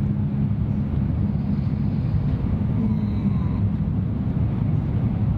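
Steady low rumble of a Shinkansen bullet train running, heard from inside the passenger cabin.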